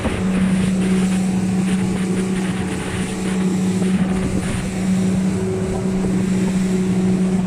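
Twin engines of a Capelli motorboat running steadily at cruising speed, about 3700 rpm, giving a steady low hum, over the rush of wind and water.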